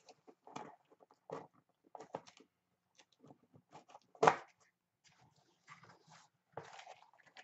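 Small cardboard shipping box handled and opened by hand: scattered crinkles, scrapes and taps of cardboard, with one sharp, louder crack about four seconds in.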